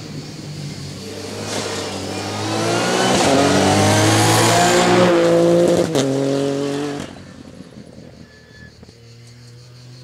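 Ford Fiesta Rally4 rally car's turbocharged three-cylinder engine accelerating hard past the roadside, its pitch climbing, with a gear change about six seconds in. The sound cuts off suddenly about a second later, leaving only a faint engine hum.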